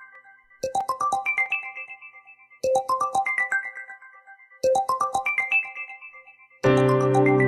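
Meizu phone ringtone: a short rising melody of quick notes, played three times about two seconds apart. Near the end a different, fuller ringtone with sustained low notes starts.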